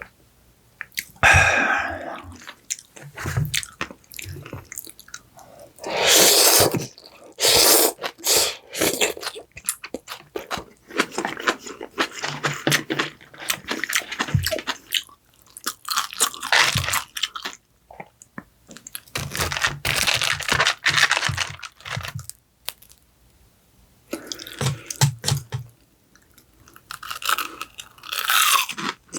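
Close-miked eating: crunchy bites and chewing, in bursts of a few seconds broken by short pauses.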